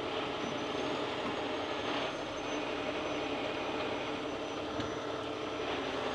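Diesel engine of a heavy rotator tow truck running steadily under load while its boom winch lifts an overturned box truck, with a thin high whine over the drone.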